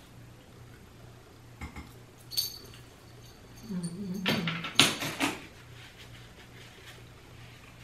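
Glass mixing bowls and their seafood contents being handled at the table: a few isolated clinks, one with a short glassy ring, then a brief run of louder clatter and rustling about four to five seconds in.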